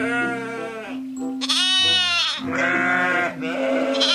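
Lambs bleating: about four bleats one after another, over background music.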